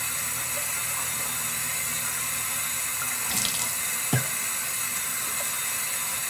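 Tap running steadily into a bathroom sink, with a light knock about four seconds in.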